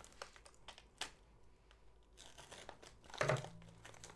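Plastic poly mailer being cut and torn open at its seam: quiet crinkling and tearing of the plastic with a few light ticks, then a louder crinkle a little over three seconds in.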